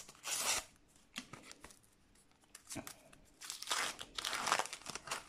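Panini sticker packet being torn open and the stickers pulled out: short bursts of paper tearing and crinkling, a short one at the start and a longer one about three and a half seconds in.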